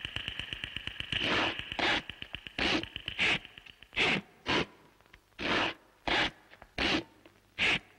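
Cartoon sound effects: a high, fast-pulsing chirr like night insects that fades out after about three seconds, under a series of short rasping scrapes that come at uneven intervals, about one or two a second.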